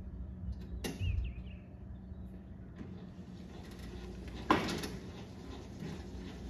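Cub Cadet XT1 LT42 riding mower, engine dead, being pushed by hand across concrete: a sharp click near the start and one loud clunk a little past the middle.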